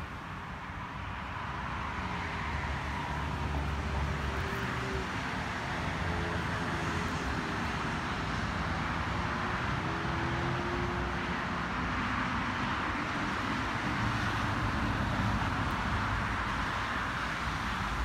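Steady outdoor background noise: an even hiss with a low rumble, growing a little louder over the first few seconds and then holding steady.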